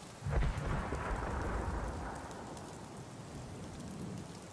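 A sudden low rumble starts about a quarter second in and fades away over about two seconds, over a steady outdoor hiss.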